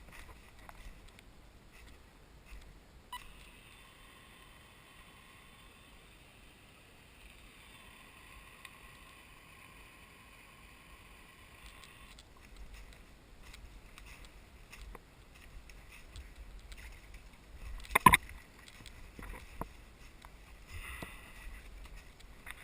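Faint footsteps and rustling through forest leaf litter and brush. A steady faint tone switches on abruptly a few seconds in and cuts off about nine seconds later. A single sharp knock comes near the end.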